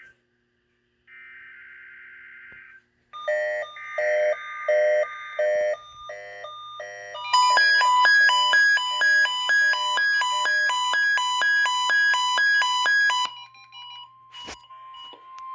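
NOAA Weather Radio Required Weekly Test: a short screechy digital data burst of the test's coded header, then several weather radio receivers sounding their alert beeps at once, first slower pulses and then a rapid overlapping beeping of several pitches. The beeping stops and a single steady tone holds near the end, with a sharp click.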